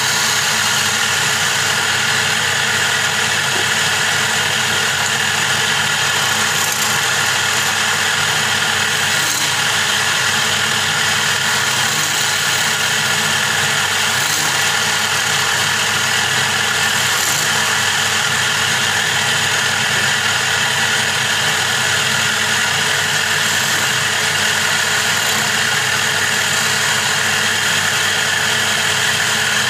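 Wood lathe running steadily, its motor humming, with the even hiss of a hand tool scraping the spinning wooden blank.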